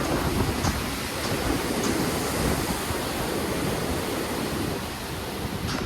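Sea surf washing onto a beach, a steady rush of waves, with wind buffeting the microphone.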